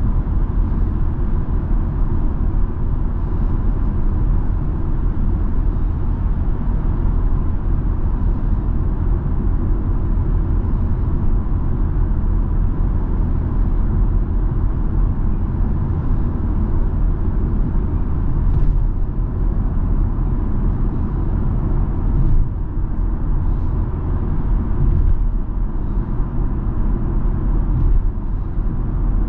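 Steady cabin noise of a BMW X3 M40i cruising at freeway speed: a constant low rumble of road and tyre noise with the drone of its turbocharged inline-six underneath.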